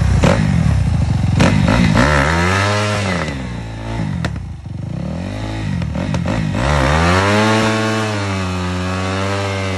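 Dirt bike engine revving hard: it climbs, drops off about four seconds in, then revs up again and holds high. A bike stuck in the mud is trying to power out, its rear wheel throwing mud.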